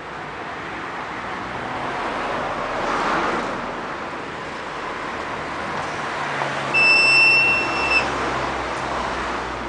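Street traffic going by, a steady rush that swells as vehicles pass. About seven seconds in, a steady high-pitched beep sounds for about a second.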